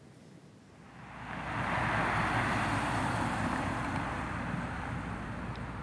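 Steady rushing noise of a vehicle on the move, fading in about a second in over a low rumble.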